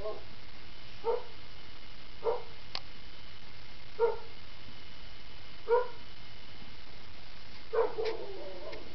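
A small animal's short calls, five or six of them spaced a second or two apart, the last one longer, with a few faint clicks between them.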